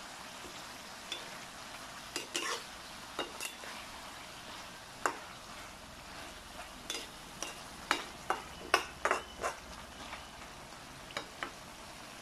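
Chicken with onion and garlic sizzling in a metal pan while a slotted metal spatula stirs it. Irregular scrapes and clinks of the spatula against the pan come more often in the second half.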